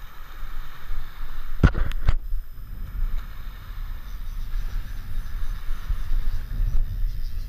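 Wind rumbling on the microphone outdoors, with three sharp knocks in quick succession about two seconds in.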